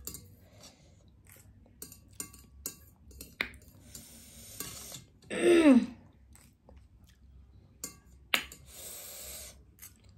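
Eating sounds: metal chopsticks clicking against a ceramic plate as the last spicy ramen noodles are picked up, with chewing and a couple of hissy mouth noises. About halfway through comes a short falling hum from the eater's voice, the loudest sound.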